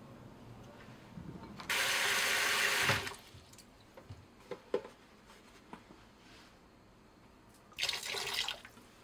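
Kitchen tap water running into a bowl of cherry tomatoes in a stainless steel sink, in two short bursts: one of just over a second, then a shorter one near the end. A few small drips and clicks fall between them.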